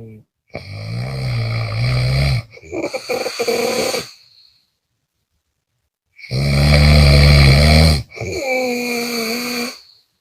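A person snoring loudly on both the in-breath and the out-breath: two breaths, each a rough low snore in two parts, with a pause of about two seconds between them.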